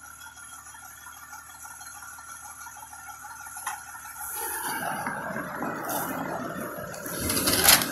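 Fire engine running at the kerb, with a louder rushing noise coming in about halfway and a loud burst of noise just before the end.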